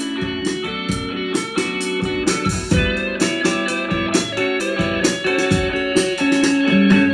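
Background music: a guitar playing quick plucked notes.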